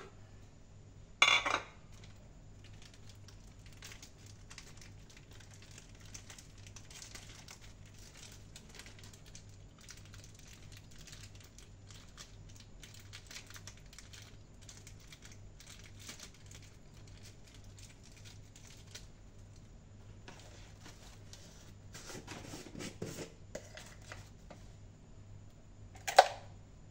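Kitchen preparation handling: faint crinkling and rustling of packaging with small clicks of utensils and dishes, and two sharp knocks, one about a second in and one near the end. A low steady hum sits underneath.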